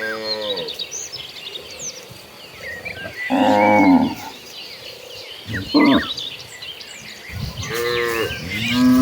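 Cattle mooing repeatedly from a herd: a moo tailing off at the start, a louder one about three seconds in, a short one near six seconds, and a long one swelling near the end. Short high chirps sound faintly behind them.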